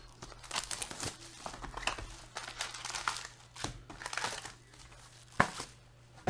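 Trading-card pack wrappers crinkling and tearing as packs are opened by hand, in a run of uneven bursts, with a sharp click about five seconds in.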